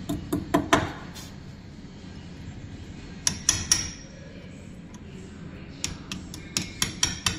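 Hammer tapping a steel punch held against the front wheel hub nut of a Polaris Ranger XP 1000: sharp metallic strikes in three bursts, a few in the first second, three about three seconds in, and a quicker run of taps near the end.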